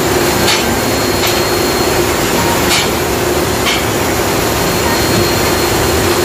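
Loud, steady industrial roar and hiss of heavy plant machinery, with a constant hum underneath and a few sharp ticks scattered through.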